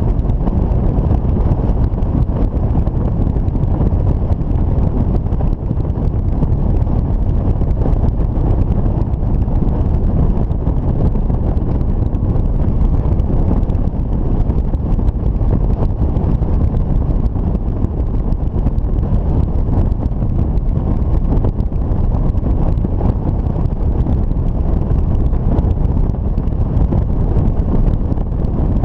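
Steady low rumble of wind rushing over the microphone of a camera mounted on a motorcycle cruising at road speed, with engine and road noise blended into it.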